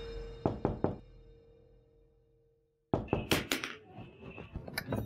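Three quick sharp knocks over a fading held musical note, then after a brief silence a run of further knocks and clatter.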